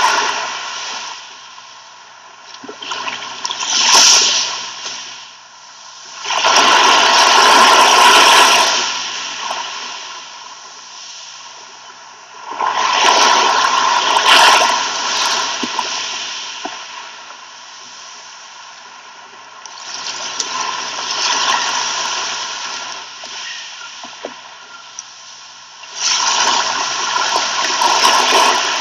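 Sea waves breaking and washing up a shore, each surge swelling and falling away, about six times, with quieter wash between them.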